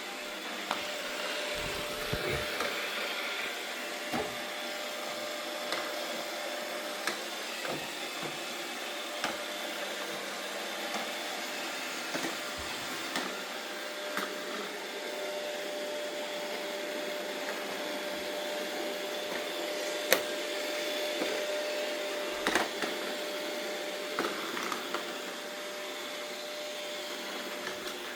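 Robot vacuum cleaner running, a steady whirr with a held hum, and short sharp knocks now and then, the loudest about twenty seconds in.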